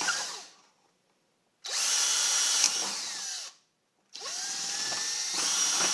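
Power drill boring holes through a plastic food-storage container: one run winds down at the start, then the drill starts up twice more for runs of a couple of seconds each, its motor whine climbing as it spins up.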